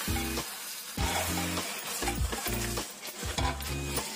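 Goat head pieces sizzling in hot mustard oil in an aluminium pressure cooker, with a ladle starting to stir them near the end. Background music with a steady beat plays throughout.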